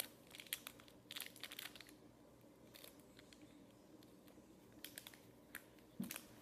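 Small plastic toy packaging crinkling and tearing as it is pulled open by hand: a faint cluster of crackles in the first two seconds, then a few scattered clicks.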